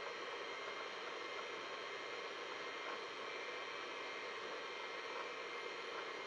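Steady whir and hiss of an old 286 PC running, its cooling fan and spinning hard drive busy during a virus scan of the disk.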